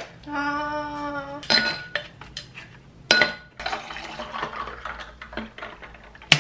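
Ice cubes clinking into a glass, then liquid poured from a plastic bottle over the ice, hissing and trickling. Near the start there is a brief steady pitched sound about a second long.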